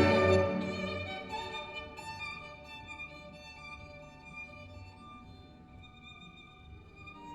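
Recorded violin music played back over a high-end stereo system built around a totaldac converter. A loud, full passage falls away over the first second or two into a quiet, held violin line.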